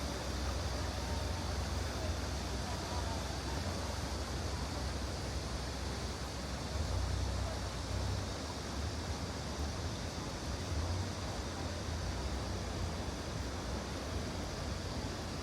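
Steady outdoor ambience of an urban stream: flowing water over a low city rumble, with faint voices of passers-by in the first few seconds.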